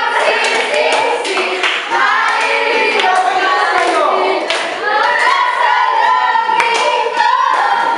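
A group of young people singing together, with hand claps scattered through the singing.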